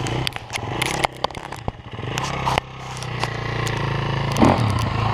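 Enduro dirt bike engine running on a steep dirt hill climb, with scattered sharp clicks in the first few seconds and a louder rev about four and a half seconds in.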